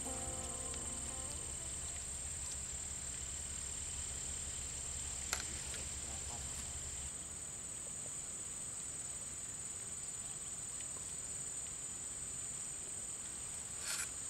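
Steady, high-pitched drone of insects. A low hum underneath stops about seven seconds in, and there is a single click about five seconds in.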